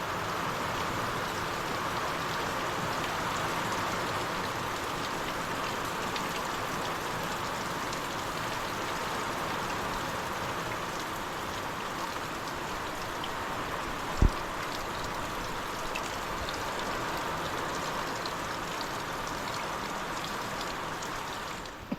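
Heavy rain falling steadily, with one short low thump about fourteen seconds in.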